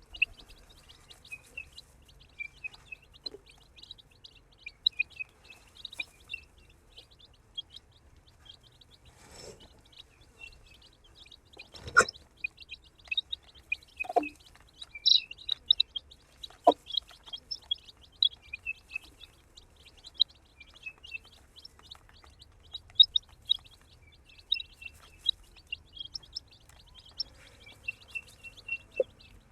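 A group of baby chicks peeping continuously: many rapid, high-pitched chirps overlapping, with a sharp knock about 12 seconds in.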